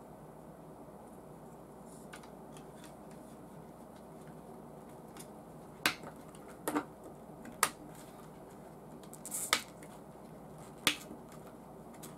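Small plastic parts of a V8 engine model kit being handled and fitted into a clear cylinder head by hand: about five sharp clicks and taps, spread over the second half, with a short rustle near the end.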